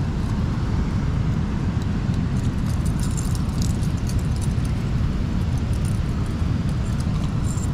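Steady rushing rumble of river water pouring over a dam spillway. Light metallic clinks of a chain fish stringer are handled over it.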